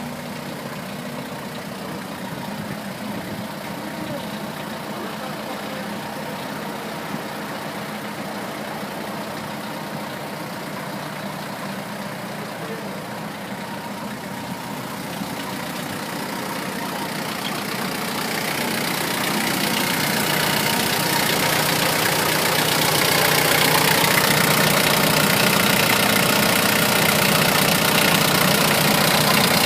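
Toyota 8FDJF35 forklift's 3Z diesel engine running at idle. Past the middle it grows steadily louder over several seconds and then stays loud.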